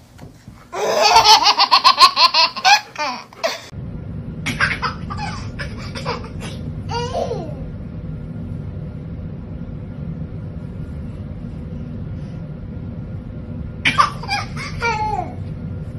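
A baby laughing hard in a rapid run of high-pitched belly laughs for about three seconds. Then a steady low rumble sets in, with a few short bursts of voice over it.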